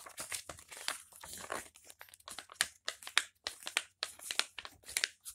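Paper page of a comic book flipped quickly back and forth by hand, rustling and flapping in many short, irregular strokes.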